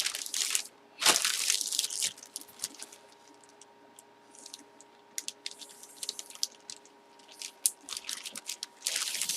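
Crinkling and rustling from packaging being handled, in irregular bursts with scattered small clicks, loudest about a second in and again near the end. A faint steady hum lies underneath.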